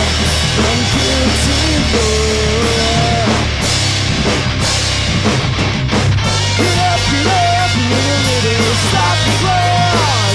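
Loud rock music with a full drum kit and a melodic lead line that bends and slides in pitch.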